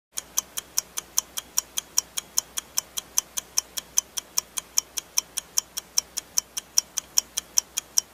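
Countdown-timer sound effect of a ticking clock: rapid, even, sharp ticks, about five a second, beginning a moment in. It marks the time running out to guess the answer.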